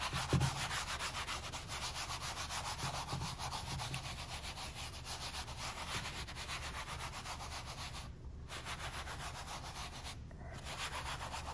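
A towel rubbing back and forth over a wet oil-paint imprimatura, wiping it down to lift paint and lighten the toned ground. The rubbing breaks off briefly twice near the end.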